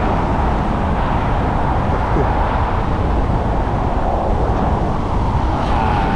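Steady, loud wind noise buffeting the microphone during a paraglider flight, a rushing rumble heaviest in the low end.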